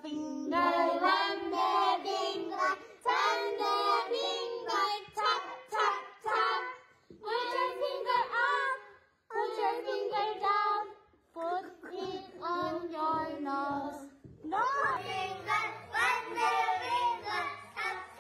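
Young children singing together as a group, line after line, with short breaks between phrases.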